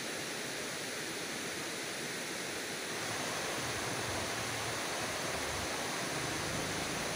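Steady rush of a large river's flowing water, an even noise with no breaks.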